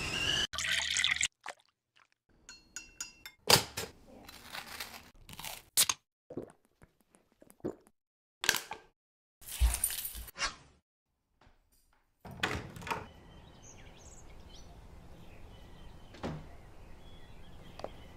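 A string of short household sounds, each cut off into dead silence: liquid pouring, thunks and clinks. From about twelve seconds in there is a steady outdoor background with faint bird chirps.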